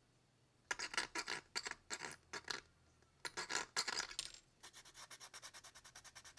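Hobby knife blade scraping a plastic model-kit body part to clean off a burr: bursts of short scratchy strokes, then a quicker, even run of strokes, about nine a second, in the second half.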